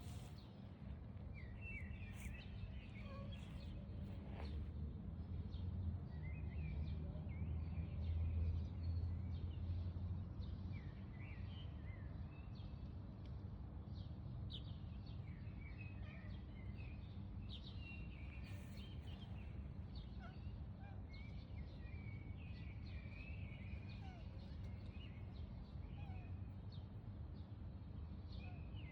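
Small birds chirping in many short, high calls over a steady low background rumble, which swells for a few seconds near the start.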